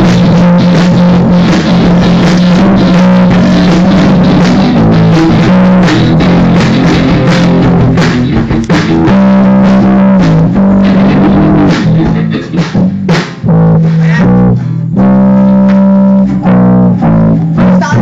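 Rock band rehearsing live in a small room: electric guitar, bass and drum kit playing loud. The playing is dense at first, then breaks into short stops and held chords in the second half.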